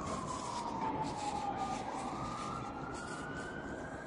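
A siren wailing slowly. Its pitch falls for about two seconds, then rises again, over a steady background hiss.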